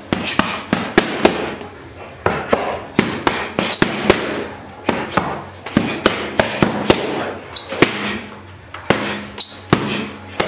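Boxing gloves striking focus mitts in fast combinations: sharp slapping smacks, mostly in quick runs of two to four punches with short pauses between.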